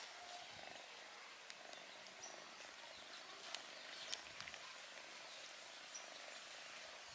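Faint outdoor background hiss with a few soft, sharp clicks and two brief high chirps.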